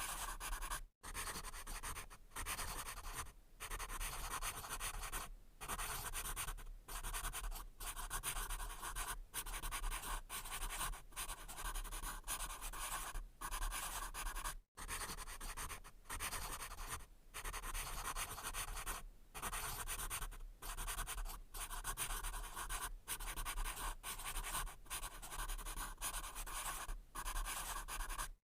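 Pencil writing on paper: a continuous scratchy rasp of graphite across the sheet, broken by short pauses every second or two as the pencil lifts between strokes.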